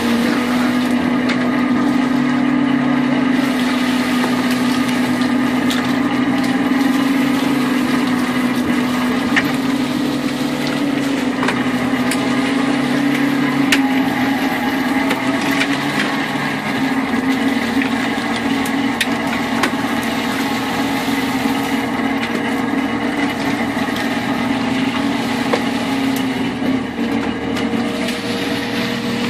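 Fishing boat machinery running with a steady hum, with scattered sharp knocks and clicks over it.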